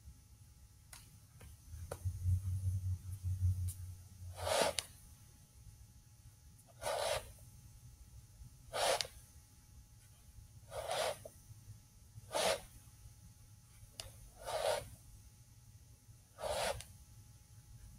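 Short, sharp exhalations of a man practising a Wing Chun form, seven in all, about one every two seconds. A low rumble runs for a couple of seconds near the start.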